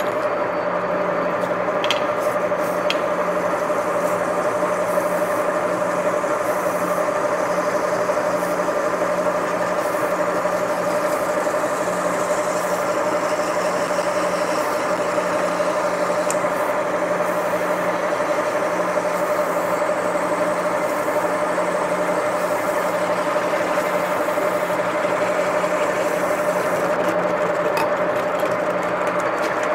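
Metal lathe running steadily at 875 rpm, a constant hum with a whine from the drive, while the tool takes an eighth-inch cut off a spinning rubber roller.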